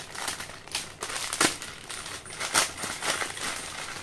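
Foil snack packet crinkling as it is cut open with scissors and pulled apart by hand: irregular crackles, with two sharper, louder crackles about one and a half and two and a half seconds in.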